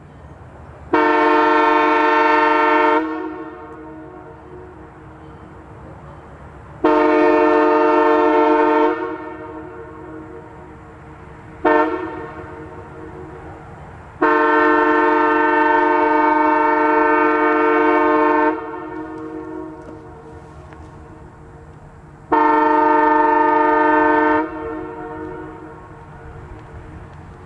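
Multi-chime train air horn sounding five blasts: long, long, a very short one, a longer one of about four seconds, then long again. Each blast trails off in an echo.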